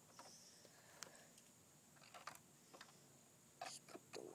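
Near silence, with a few faint clicks and light handling noises as Lego bricks and a thin power cable are fitted, a small cluster of clicks near the end.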